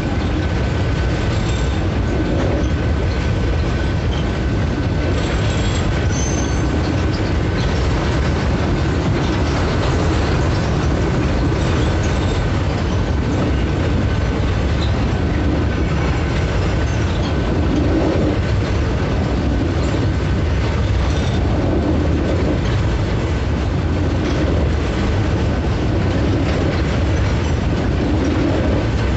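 Freight train wagons rolling past at close range: a loud, steady rumble and rattle of steel wheels on the rails, with a thin steady high tone over it.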